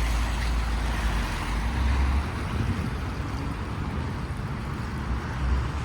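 Steady road traffic noise on rain-wet roads, with a heavy low rumble underneath.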